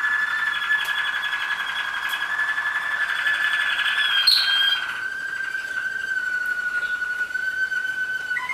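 Waterslager (Malinois) song canaries singing a long, unbroken trilled note that slowly falls in pitch. A brief higher note breaks in about four seconds in, and a new phrase begins at the very end.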